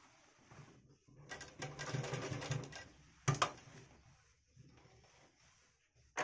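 Bharat sewing machine running for a couple of seconds, starting about a second in. It is followed by a single sharp knock, then faint rustling of cloth and paper being handled.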